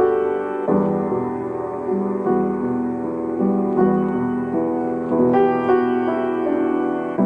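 Background piano music, one note or chord after another.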